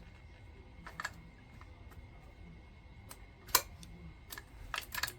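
Small sharp clicks and taps from hands working chainsaw parts while the throttle cable is fitted back onto the carburetor. A few scattered clicks come first, the sharpest about three and a half seconds in, then a quick run of clicks near the end.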